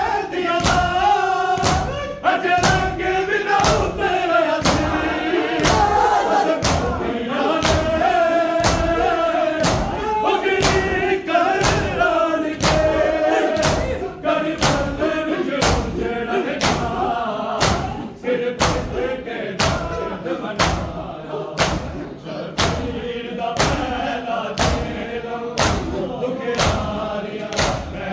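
Men's voices chanting a noha in unison over steady, evenly spaced chest-beating (matam) by a group of mourners. The chanting is fullest in the first half and thins later, leaving the strikes more prominent.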